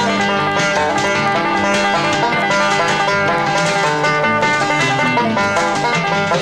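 Bluegrass band playing an instrumental passage, with a picked banjo out front over guitar and bass.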